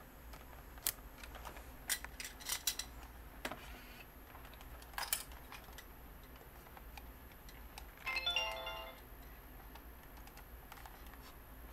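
Samsung SC-D372 camcorder handled, its plastic controls and covers giving a series of sharp clicks, then about eight seconds in a short electronic beep tune of a few stepped notes lasting under a second, typical of the camcorder switching on.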